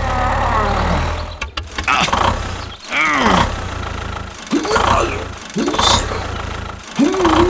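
A small motor's hum winds down and stops about a second in, followed by a series of short voice-like cries and groans, each rising or falling in pitch.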